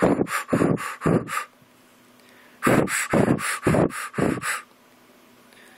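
A person huffing out quick, breathy puffs of air, like panting or snorting: a run of about five, then a second run of about five starting roughly two and a half seconds in.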